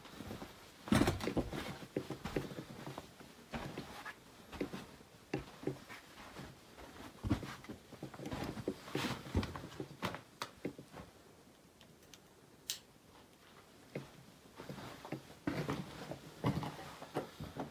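Footsteps on the rocky floor of a lava tube cave: irregular steps and scuffs, easing off for a few seconds past the middle before picking up again.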